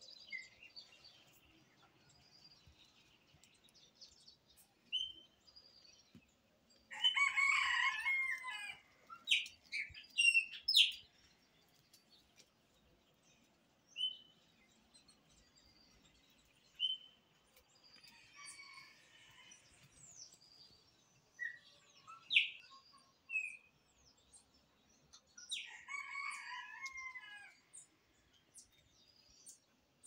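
A rooster crowing, loudly about seven seconds in and again near the end, with a fainter crow in between. Small birds give scattered short, high chirps.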